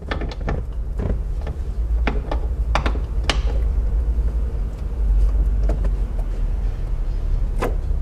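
Ratchet and Torx bit being fitted onto a seat belt anchor bolt: scattered, irregular metal clicks and taps over a steady low rumble.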